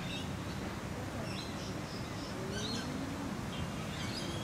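Small birds chirping in short, high calls scattered throughout, over a steady low outdoor background noise.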